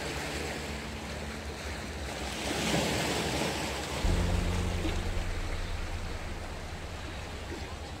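Sea waves washing and breaking over shoreline boulders, one wave surging up loudest around three seconds in. About four seconds in, a low steady drone comes in suddenly and runs under the surf.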